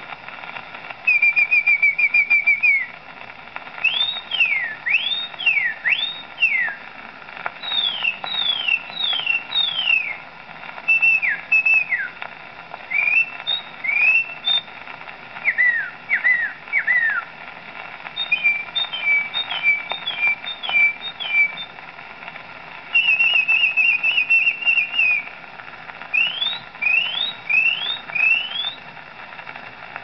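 A man whistling an imitation of a song thrush, played from an old gramophone record through a horn gramophone. Short phrases of sweeping notes and quick trills, each repeated two to four times, over steady record surface hiss.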